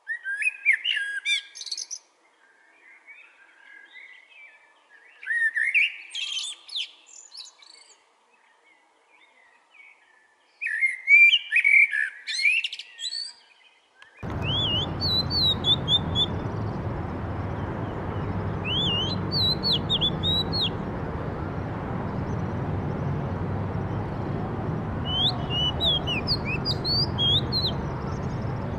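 Eurasian blackbird singing three separate phrases, each a warble rising into a high squeaky twitter. About fourteen seconds in the recording cuts to a steady low background noise with short, thin, high chirps from a bird.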